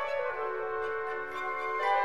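Background music: a slow instrumental melody of held notes that change from one to the next.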